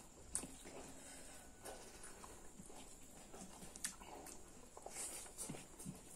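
Quiet eating sounds of pork curry and rice eaten by hand: chewing and lip smacks, with scattered small clicks and a sharp click about half a second in and another near four seconds in.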